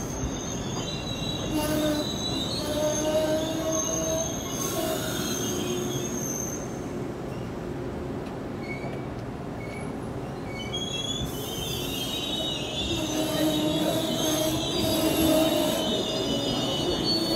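Amtrak Amfleet passenger coaches rolling slowly past with a steady rumble, their wheels squealing in high, sustained tones in two spells, from about a second and a half in to seven seconds and again from about eleven to sixteen seconds.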